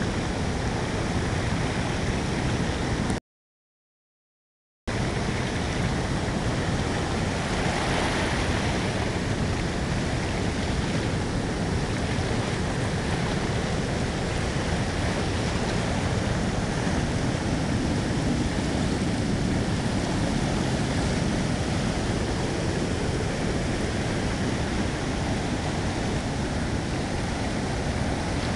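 Swollen, muddy river rushing over a waterfall and rapids: a steady, loud rush of whitewater. The sound cuts out completely for about a second and a half about three seconds in.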